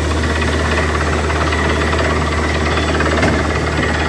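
Truck-mounted borewell drilling rig running steadily: a loud engine drone under a fast hammering rattle from the drill, with water and slurry splashing out of the bore.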